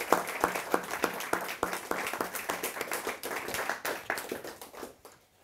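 Applause from a small audience, many separate hand claps, dying away near the end.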